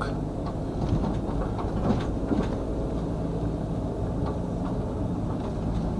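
Steady low drone of a car's engine and tyres, heard from inside the cabin.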